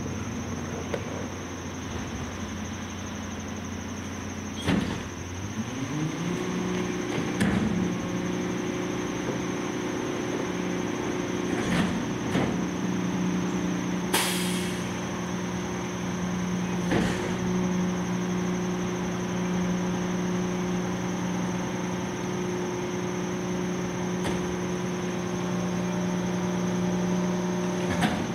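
Garbage truck with a McNeilus rear-loader body: about five seconds in, the engine speeds up from idle to a steady higher drone as the packer hydraulics run a compaction cycle. Scattered knocks and clunks come from the loading hopper, with a brief hiss about halfway through.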